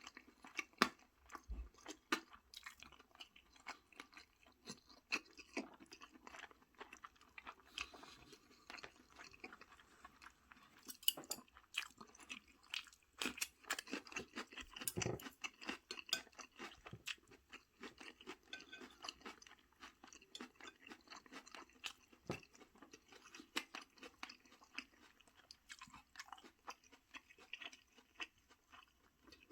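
A person chewing food close to the microphone, a steady irregular stream of small sharp clicks and wet mouth noises.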